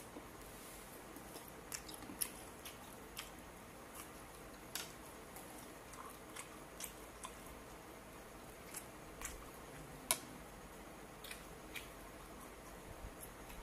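Faint, irregular mouth clicks and smacks of someone chewing grilled barbecue meat pulled off a bamboo skewer, the sharpest about ten seconds in.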